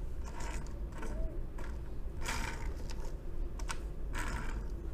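Die-cast metal toy dune buggy rolled back and forth by hand on a tabletop, its wheels and axles whirring in several short bursts, with a couple of light clicks.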